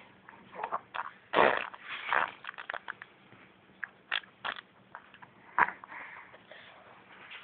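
A baby making "fart" sounds with his mouth in several short bursts, the loudest about a second and a half in.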